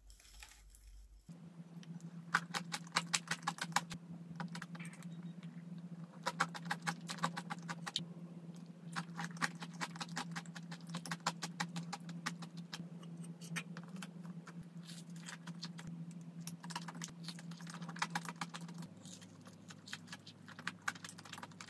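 Close-miked chewing of Greek yogurt with crunchy granola: a dense, irregular run of small crisp crunches.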